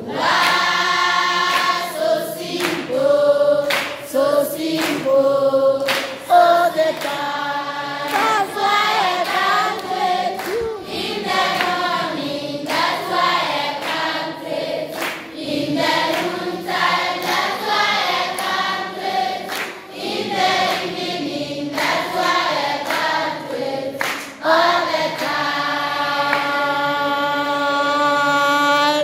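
Large crowd of schoolchildren singing an anthem together, ending on a long held note.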